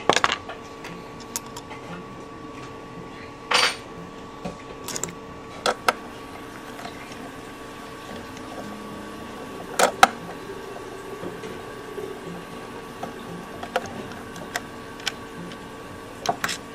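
Scattered clicks and knocks of hands handling the plastic air box and housing parts of a Honda EU2000i generator, with a short rustle about three and a half seconds in and a sharper double knock near the middle, over a steady low hum.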